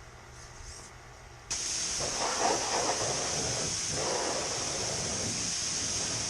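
Steady hissing spray that starts abruptly about a second and a half in, with two lower swells of spatter as the spray hits a surface.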